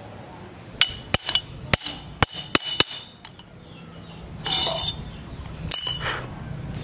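About six sharp, ringing metal taps of a hammer on a bicycle suspension fork over roughly two seconds, followed by a short scrape and a clink of metal parts near the end.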